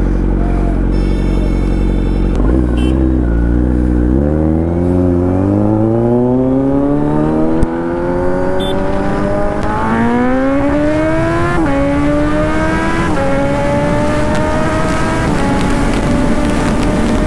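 Kawasaki Z900 inline-four with an SC-Project aftermarket exhaust accelerating hard. The engine note climbs steadily in pitch, and several quickshifter upshifts each cut it sharply lower before it climbs again. Wind noise grows as the speed rises.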